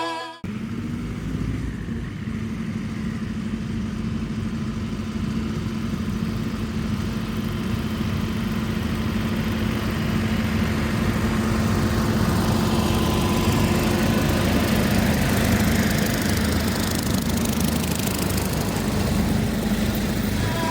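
Massey Ferguson tractor engine running steadily at a constant pitch, driving a brush hog (rotary cutter) through pasture growth.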